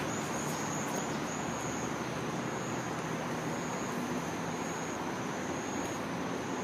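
Outdoor ambience: a thin, high, steady insect trill, which the speaker takes for a distant cicada, over a low even background rumble.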